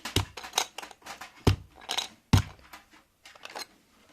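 Hard clicks and knocks of a motherboard being pushed and fumbled against a PC case, with three sharper knocks, about a second apart, standing out among the smaller clicks. The board is not seating in the case.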